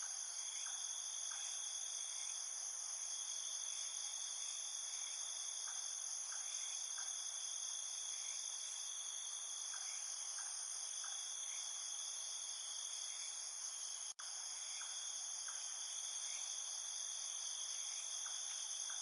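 Steady high-pitched chorus of crickets or similar insects, with faint short chirps scattered through it. It cuts out for an instant about three-quarters of the way through.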